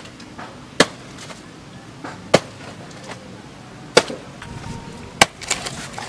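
Axe chopping into the fibrous trunk of a felled palm: five sharp, separate strikes, about one every one and a half seconds, the last two close together.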